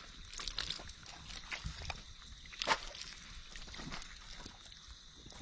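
Water sloshing and splashing in irregular strokes, with scattered knocks; one sharp splash about two and a half seconds in is the loudest.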